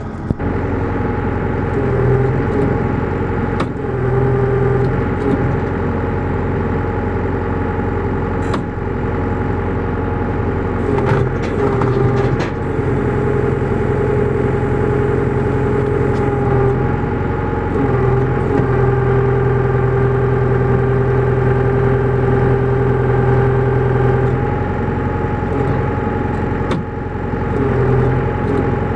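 Engine idling steadily, most likely the tractor hitched to the brush cutter, with a few brief clicks and clatters.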